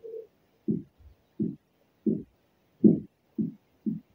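A series of short, low rubbing strokes, about one every 0.7 seconds, as wet paint protection film is worked down and stretched over the truck's headlight and fender edge.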